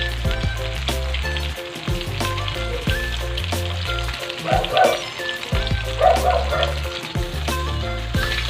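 Boiled pork pieces deep-frying in a wok of hot oil, a steady sizzle full of small crackles: the second fry that crisps the pork. Background music plays underneath.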